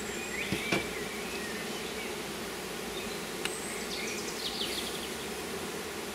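Honeybees humming steadily around an open hive full of bees, with a few light clicks of wooden frames being handled, about half a second in and once more midway.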